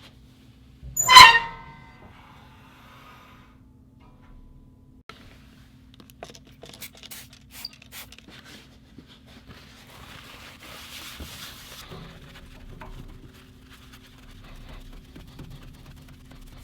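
A single sharp knock with a short metallic ring about a second in. It is followed by scattered faint clicks and soft rustling over a low steady hum.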